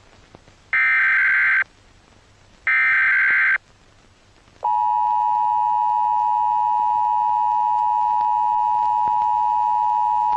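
Emergency Alert System tones: two harsh, buzzy digital data bursts about a second long, the header of an alert. At about four and a half seconds the steady two-tone attention signal starts and holds.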